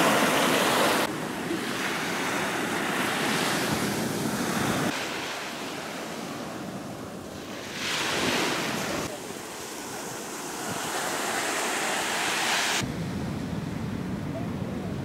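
Small waves washing up a sandy beach, the surf swelling and fading, with wind blowing on the microphone. The sound changes abruptly several times, with a deeper wind rumble near the end.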